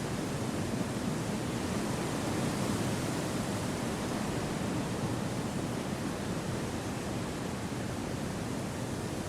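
Wind blowing through forest trees: a steady, low rushing that swells slightly a few seconds in and then eases gently.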